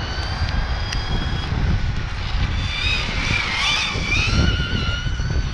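Hyper 10 SC 1/10 short-course RC truck's electric motor, running on a 3S LiPo with an 18-tooth pinion, giving a high whine that wavers up and down in pitch with the throttle and is loudest in the middle. Heavy wind buffets the microphone.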